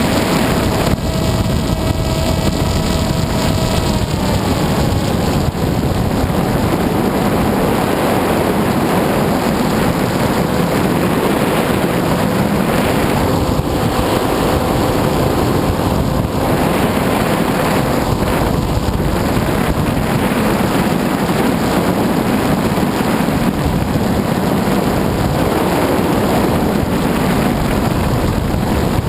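Onboard audio from an FPV model aircraft in flight: loud, steady wind rush over the microphone, with a faint motor-and-propeller whine that drops in pitch about four seconds in as the throttle changes.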